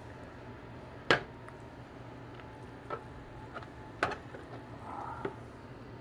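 Knife and meat against a serving tray while a brisket is cut and separated: a few sharp clicks and taps, the loudest about a second in and another about four seconds in, with soft squishy handling between.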